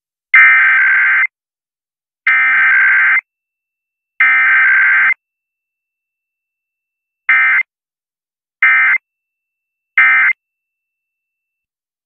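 Emergency Alert System SAME data tones marking a Required Weekly Test: three header bursts of about a second each, roughly two seconds apart, then three short end-of-message bursts, each a fast chatter between two high tones.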